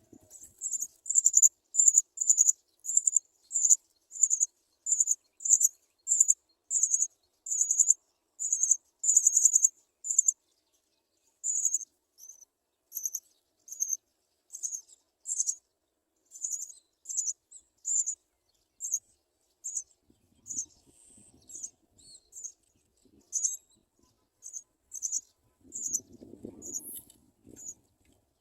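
House sparrow chirping: short, high-pitched chirps repeated about twice a second, more evenly and louder for the first ten seconds and more irregular after. A faint low rumble joins in near the end.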